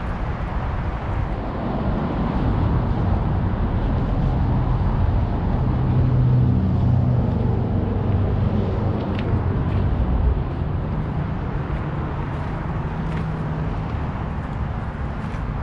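Vehicle engine rumbling steadily outdoors; it grows louder through the middle and drops off suddenly about ten seconds in.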